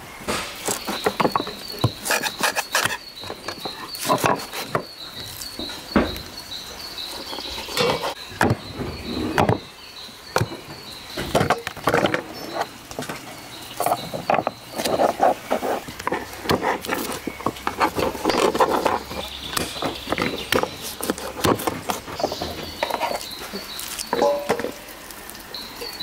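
A hatchet chopping through meat and bone on a wooden cutting board, in repeated sharp knocks at an uneven pace. Crickets chirp steadily in the background.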